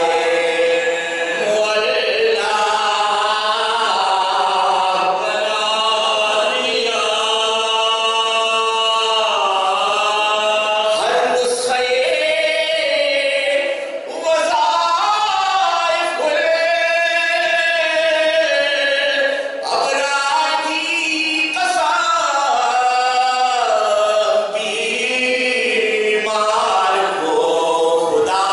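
A small group of men singing an Islamic devotional recital without instruments, voices stretching long held notes in a slow chant, with brief breaths between phrases.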